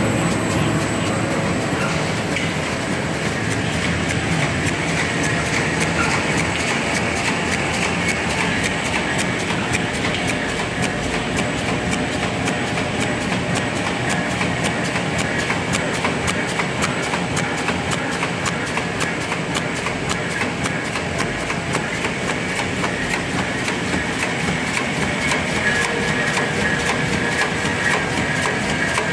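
Paper bag making machine with online patching and half punching running at production speed, 120 bags a minute: a steady mechanical running noise with a fast, even clatter.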